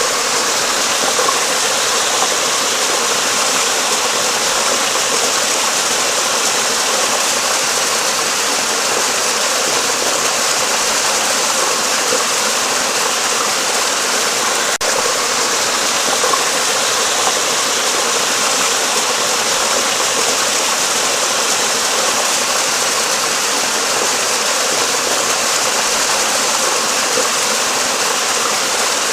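Flowing water rushing steadily, a constant hiss-like wash with no change in level.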